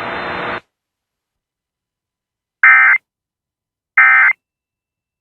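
Emergency Alert System end-of-message signal: short, identical buzzy data bursts, two in quick succession about a second and a half apart, marking the end of the alert. A steady hiss cuts off just before them.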